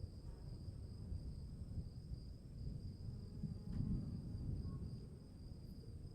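Insects chirring steadily on two high, unbroken tones over the low, uneven rumble of a storm, which swells briefly about four seconds in.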